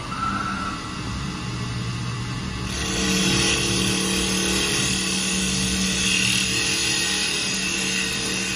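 WS-L1530A automatic CNC woodworking lathe running with a steady motor hum. A little under three seconds in it gets louder as a hiss of the tooling working the spinning wooden blanks joins, together with a steady whine of the machine's motors.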